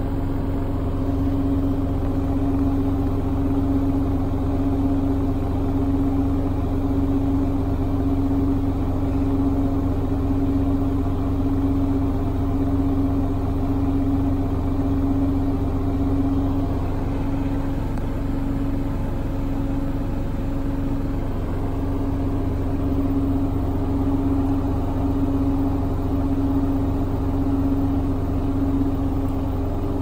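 Hoover AXI front-loading washing machine in its 1600 rpm final spin: the drum and motor give a steady, loud whine that pulses gently and regularly over a low hum.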